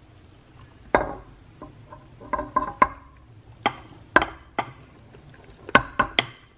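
About ten sharp clinks and taps of a glass bowl of flour against a stainless steel stand-mixer bowl as flour is tipped in a little at a time. The taps come at irregular intervals, and a few ring briefly.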